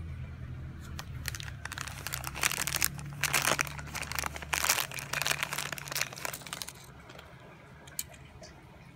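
Thin clear plastic bag crinkling and rustling as a die-cast toy car is slid out of it. The crinkling comes in uneven bursts over about six seconds, loudest in the middle, with one light click near the end.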